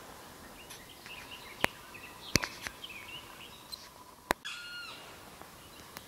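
Wild forest birds chirping and calling, with a harsher cry about four and a half seconds in. A few sharp snaps, the loudest sounds, break in about a second and a half, two and a half, and four seconds in.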